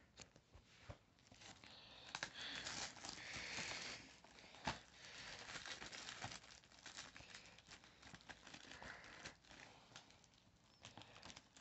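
Faint crinkling and tearing of the plastic shrink-wrap being peeled off a new DVD case, with a sharp click a little under five seconds in.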